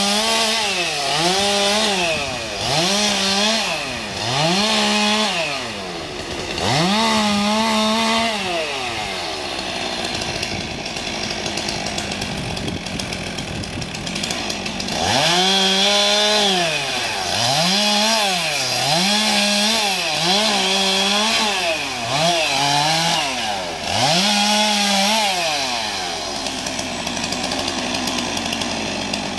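Stihl chainsaw revving up to full throttle and dropping back again and again, about once a second, in short cuts. Between the two runs of cuts, and near the end, it runs more steadily with no sharp revs.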